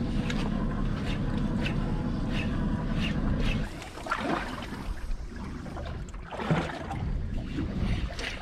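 Yamaha 250 outboard motor running at low speed, its rumble dropping away about three and a half seconds in, leaving quieter water sounds.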